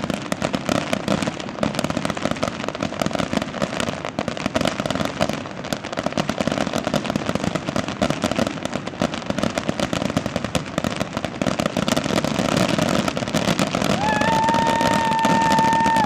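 Fireworks grand-finale barrage: a continuous, rapid crackle of many shells bursting and banging on top of one another. Near the end a steady high tone sets in and holds for about two seconds.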